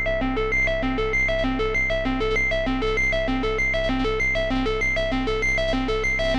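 Moog Subharmonicon analog synthesizer playing a fast, evenly repeating sequence of short notes at several interlocking pitches over a steady low bass drone.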